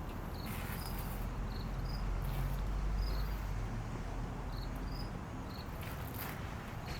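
Crickets chirping: short high chirps repeating irregularly, about two a second, over a steady low rumble.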